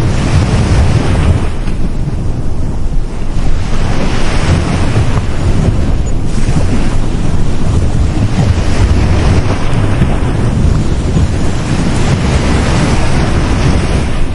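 Sea waves breaking and washing on a beach, a continuous surf noise that swells and eases every few seconds, with heavy low rumble from wind buffeting the microphone.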